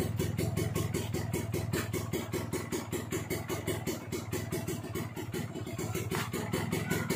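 Kawasaki Ninja RR's two-stroke single-cylinder engine idling through its stock exhaust with the baffle gutted (bedel), a steady, evenly pulsing beat.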